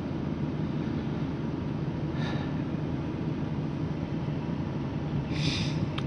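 Steady low mechanical hum, with a faint brief hiss about two seconds in and a louder short hiss near the end.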